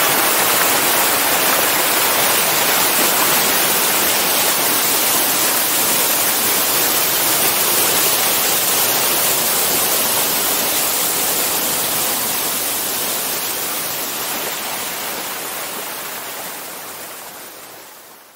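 Waterfall: a steady rush of white water pouring over rock, fading out over the last several seconds.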